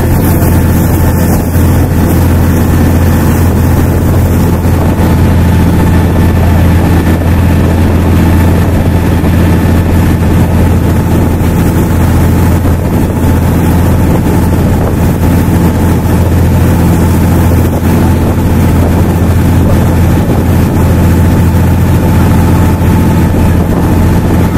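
Passenger boat's engine running steadily at cruising speed, heard on board as a constant low hum.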